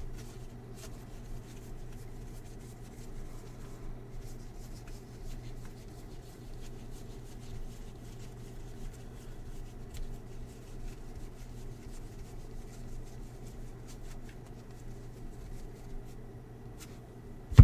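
Trading cards being slid and handled, with soft rustling and light ticks over a steady low hum. A single sharp knock comes right at the end.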